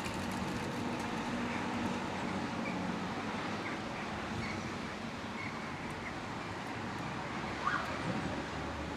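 Steady background noise of distant city traffic, with a few faint short bird chirps.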